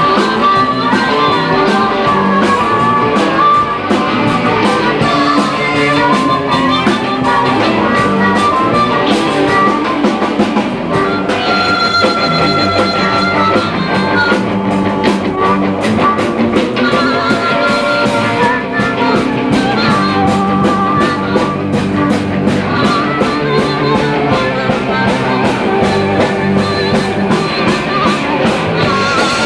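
Blues-rock band playing live: guitar over a steady drum beat.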